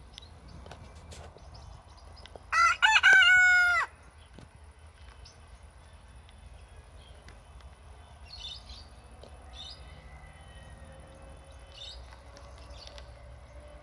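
Wyandotte rooster crowing once, about two and a half seconds in: a short broken opening, then a long held note that drops off at the end.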